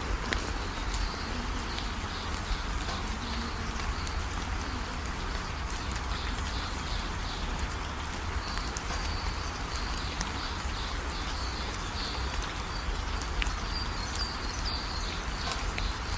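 Wind buffeting the microphone with a steady low rumble, while small birds chirp repeatedly in short high calls.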